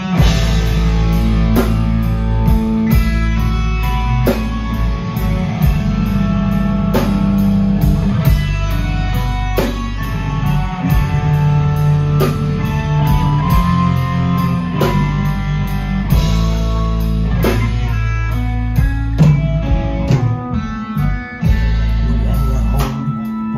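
Live rock band playing an instrumental passage: electric guitar, bass guitar and drum kit with a steady beat.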